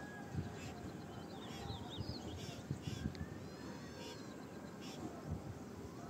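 Birds chirping and calling: short, high chirps and quick repeated calls about once a second, over a steady low outdoor rumble.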